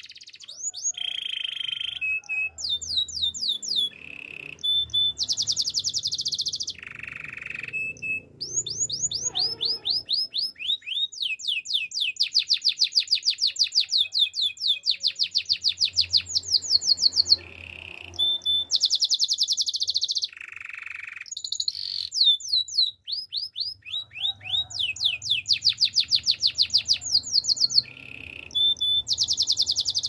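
Male domestic canary singing: a long run of trilled phrases, each a fast string of repeated notes, many sliding down in pitch, with short breaks between phrases and the trill speed changing from phrase to phrase.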